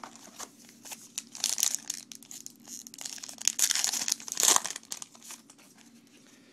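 Wrapper of a trading-card pack being torn open and crinkled, in two spells of rustling: one about a second and a half in, a longer one from about three to nearly five seconds in.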